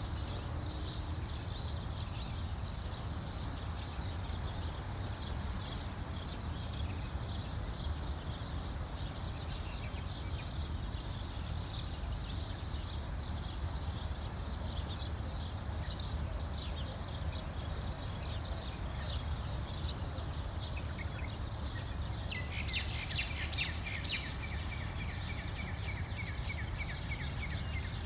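Many small birds chirping continuously over a low, steady background rumble, with a louder, denser burst of chirping shortly before the end.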